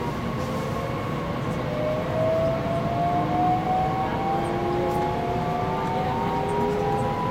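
Bombardier Talent electric multiple unit's traction motors whining and rising slowly in pitch as the train accelerates away from a station, over a steady rumble of the train running.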